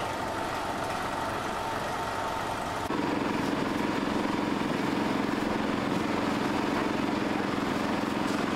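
Steady motor hum that starts abruptly about three seconds in and runs on evenly, louder than the general market background noise before it.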